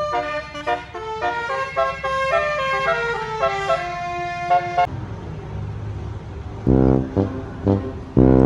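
Basuri telolet multi-tone bus horn playing a quick melody of changing notes. About five seconds in the melody stops and a low rumble sets in, followed by several short, deep horn blasts near the end.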